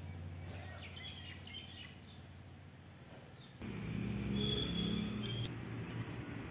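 Outdoor ambience with small birds chirping. About halfway in, the background noise steps up louder, with a short high whistle and then a few sharp clicks.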